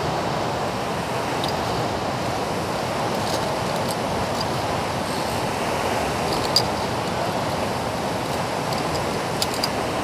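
Steady rushing roar of a large alpine waterfall in full spate, swollen with snowmelt. A few light clicks come through it, the sharpest about two-thirds of the way through.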